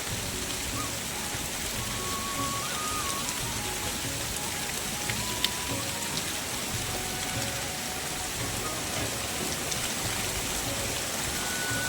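Heavy rain falling steadily, with a faint melody of background music over it and one sharp tick about halfway through.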